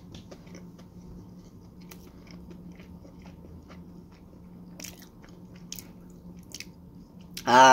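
Mouth chewing a final mouthful of pizza, with faint irregular clicks and crunches over a steady low hum. A loud voice breaks in near the end.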